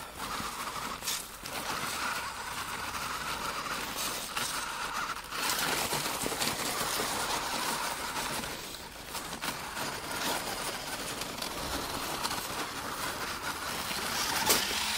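Electric motor and gears of an RC crawler car whining as it struggles over snow, dropping out briefly about five seconds in and fading around nine seconds. Just before, the car is said to be already 'coughing', a sign it is labouring.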